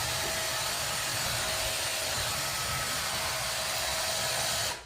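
Vacuum cleaner motor running steadily with a faint whine, switched off just before the end, where it cuts out abruptly.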